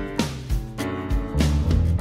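Background music with plucked string notes ringing over a steady beat.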